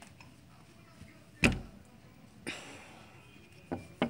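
Handling noise on a phone: a sharp thump about a second and a half in, then a short rustle and a couple of small knocks, as a child's fingers bump and rub against the phone.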